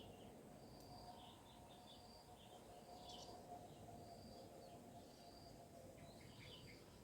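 Faint outdoor ambience: a short high chirp repeating about once a second, with scattered twittering bird calls over a soft steady background of insects.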